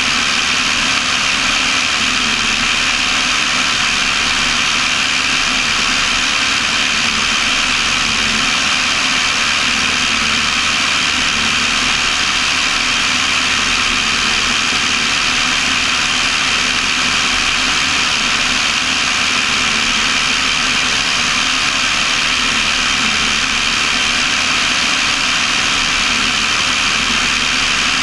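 Cessna 172's piston engine and propeller running steadily in flight, with a constant rush of airflow, heard from inside the cabin.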